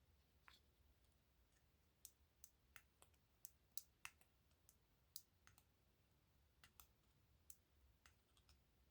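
Faint, irregular light clicks and taps of small metal lock parts being handled, about fifteen scattered through otherwise near silence.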